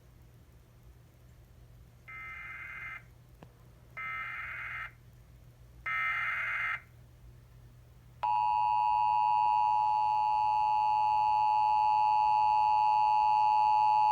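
Emergency Alert System SAME header: three short bursts of digital data tones, about two seconds apart and each louder than the last. A little over eight seconds in, the loud, steady two-tone EAS attention signal starts and holds. It announces a flash flood warning.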